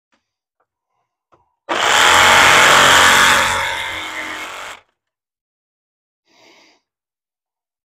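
Handheld power cutting tool running in one burst of about three seconds as it cuts the plastic factory grille insert free, starting abruptly about two seconds in and tapering off as it winds down. Two faint short scrapes follow near the end.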